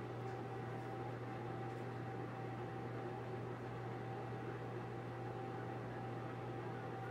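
Small NEJE mini laser engraver's cooling fan running with a steady hum and a faint steady whine, the machine powered and idle, not yet engraving.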